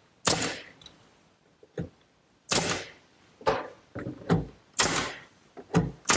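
Pneumatic nail gun driving nails into a pine cabinet. Each shot is a sharp crack with a short hiss of air. One comes about a quarter second in, then after a pause a quick run of shots about every half second.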